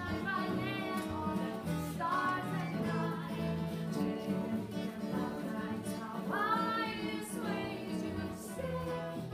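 Live acoustic music: a woman singing a melody accompanied by strummed acoustic guitar and bowed cello, without a pause.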